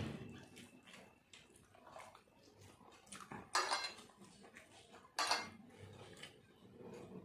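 Eating by hand from ceramic plates: fingers mixing rice and egg on the plates, with two louder clatters against the dishes about three and a half and five seconds in.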